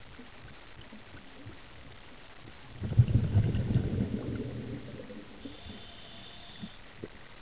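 Underwater, a burst of low rumbling bubbles starts about three seconds in and fades over about two seconds: a scuba diver's exhalation heard on the camera. A steady low water hiss runs underneath.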